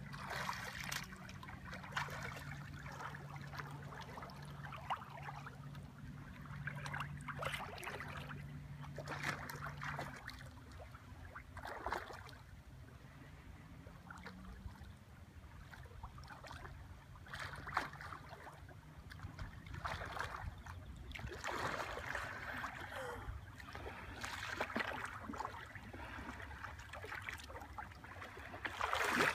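Water splashing and lapping in shallow sea in irregular bursts every few seconds, from a swimmer stroking through the water and the boat moving alongside. A faint steady low hum runs under it for about the first ten seconds.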